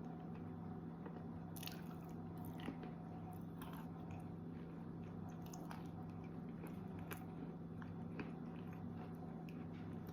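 Wet chalk being bitten and chewed close to the microphone: irregular soft crunches and crackles over a steady low hum.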